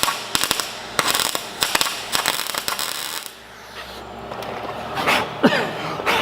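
Electric arc welder tack-welding a car's steel rear guard, crackling in several short bursts over the first three seconds. A brief sweeping sound that falls in pitch follows about five seconds in.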